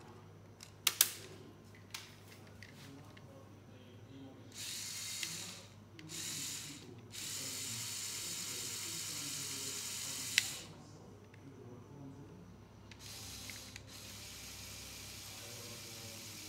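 LEGO Technic 6x6 tow truck's Power Functions electric motor and plastic gear train whirring in runs of a few seconds, starting and stopping several times, the longest about three and a half seconds. A couple of sharp plastic clicks about a second in.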